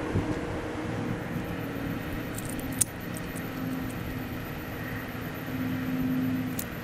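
Caulking gun being worked along a camper window seam, with two sharp clicks, about three seconds in and near the end, over a steady low hum.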